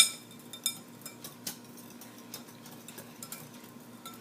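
A wire whisk stirring instant vanilla pudding mix into milk, knocking against the container: one sharp ringing clink at the start, then irregular lighter ticks as the lumps are whisked out.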